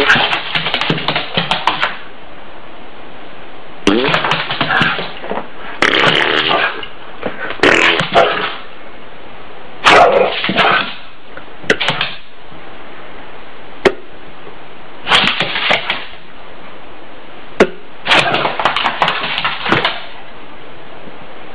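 Fart sound effects played to a puppy, with the puppy barking back. The sounds come as about eight separate bursts with short pauses between them.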